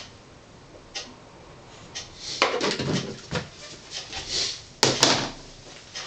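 Kitchen handling noise: containers, lids and utensils knocked and set down while a meal is packed, with a busy stretch of clatter and rustling in the middle and two sharp knocks close together about five seconds in.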